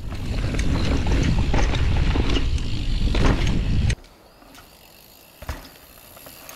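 Mountain bike descending a dirt trail: a loud rushing rumble from the ride, broken by many sharp knocks and rattles from the bike. About four seconds in the sound drops suddenly to much quieter, with one brief click near the end.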